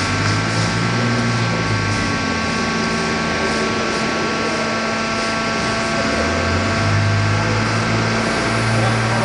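Concrete pipe machinery running steadily with a constant mechanical whine. A deep hum swells and fades three times.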